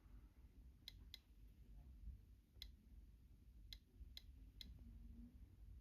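GQ GMC-800 Geiger counter clicking faintly at irregular intervals, about six counts, held against the americium-241 ion chamber of an ionization smoke detector. The count rate is only a little above background, since this Geiger tube is poor at picking up americium's alpha particles.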